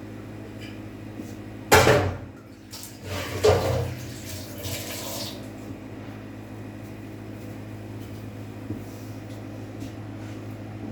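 Two loud rushes of liquid being poured or splashed, a short one about two seconds in and a longer one soon after, over a steady low hum.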